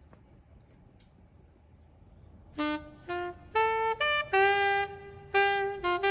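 Faint low hum with a few faint clicks, then about two and a half seconds in a jazz saxophone starts a melody: a single line of short and held notes, rising and then stepping down.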